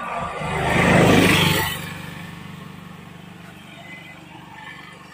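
A motor vehicle passing close by on the road, growing loud to a peak about a second in and fading by about two seconds, leaving a low engine hum.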